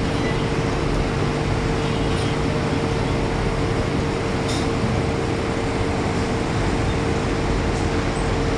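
Ferry engine running steadily, heard on board as a constant drone with a steady mid-pitched hum over a low rumble.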